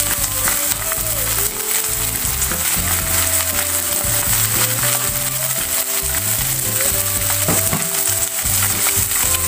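Cornstarch-coated chicken thigh fillets sizzling and crackling in shallow oil in a nonstick frying pan as the pieces are laid in. The sizzle is steady throughout, with small pops scattered through it.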